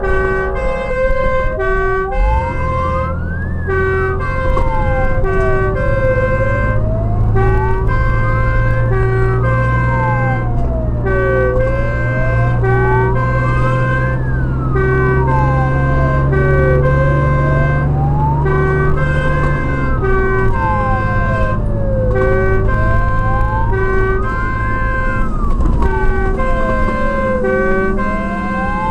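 Fire engine siren wailing, its pitch rising and falling slowly about every five seconds over a repeating hi-lo two-tone pattern. The truck's diesel engine runs underneath, its rumble climbing in pitch and then dropping about twenty seconds in.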